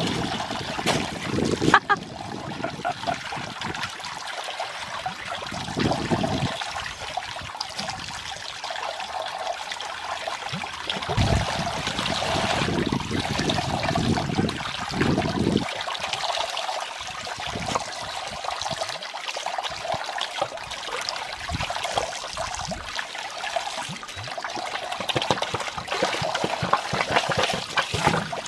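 Water running from a hose and splashing steadily, with a few louder low rumbling bursts partway through.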